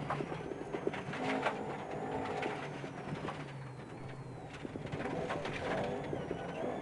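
Ford Escort Mk1 RS2000 rally car's engine running at low revs through a tight hairpin, heard from inside the cabin, with scattered clicks and knocks.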